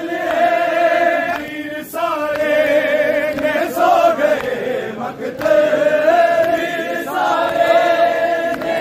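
Men's voices chanting a noha, a Shia lament, together in long sung phrases of held, wavering notes, with short breaks between phrases.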